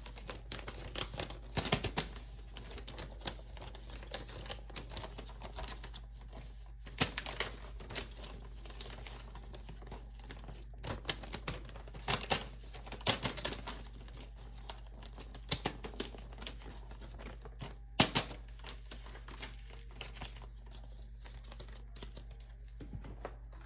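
A paper sheet being folded and handled: irregular crinkling and rustling with scattered clicks and taps, one sharper snap about eighteen seconds in.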